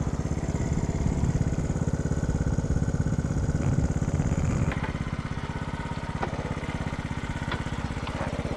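Honda C90's single-cylinder four-stroke engine running at low, steady revs, with a few faint knocks in the second half.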